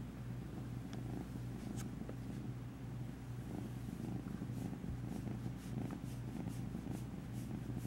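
A feral kitten purring steadily, a low continuous rumble, while being stroked by hand: the shy kitten settling into handling.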